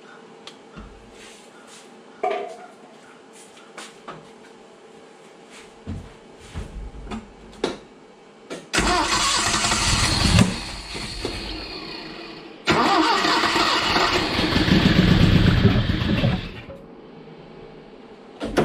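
A 1970 Datsun L16 four-cylinder engine is cranked on its starter and catches in two loud bursts, the second longer, then dies each time. The long-unrun engine is being primed with fuel poured into the carburettor and will not keep running on its own.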